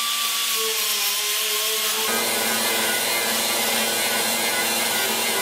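Angle grinders grinding rust off the snowmobile's steel tunnel down to bare metal. One grinder runs alone at first, and a second grinder joins about two seconds in.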